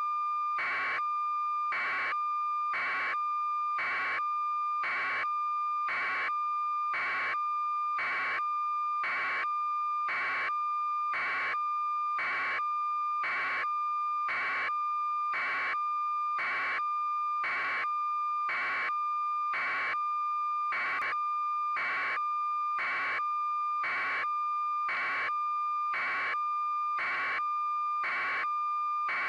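Electronic beeping: a steady high tone with a beep pulsing on it about three times every two seconds, evenly and without change.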